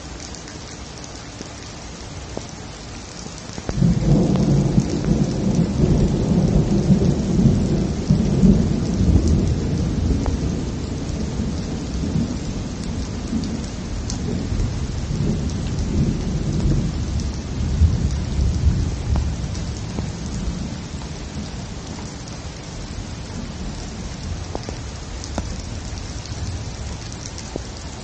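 Steady rain hissing down. About four seconds in, thunder breaks suddenly and rolls on as a long low rumble, loudest for the first few seconds and then slowly dying away.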